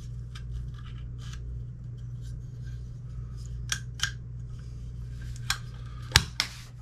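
Small metal parts of an AR-15 dust cover, its spring and hinge pin, scraping and ticking as they are fitted to the upper receiver, followed by several sharp metallic clicks in the second half, the loudest about six seconds in.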